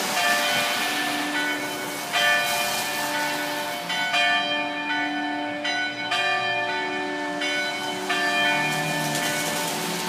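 Church tower bells pealing: several bells of different pitches struck in turn, a new stroke about every two seconds, each ringing on under the next.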